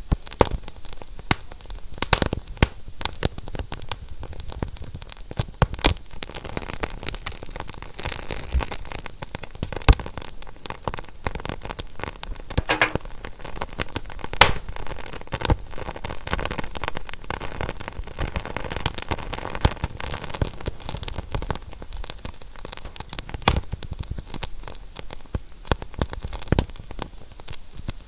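Fire crackling: irregular sharp pops and snaps over a steady hiss, with a few louder pops scattered through.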